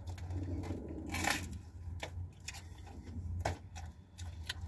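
Someone eating a slice of pizza: chewing with a crunch of crust about a second in, then soft rustles and taps as the slice is set back on the cardboard pizza box, over a steady low hum.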